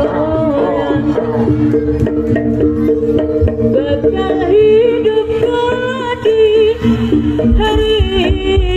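Javanese gamelan music with repeating pitched notes over a steady low beat; from about four seconds in, a singer's voice joins, wavering and sliding in pitch.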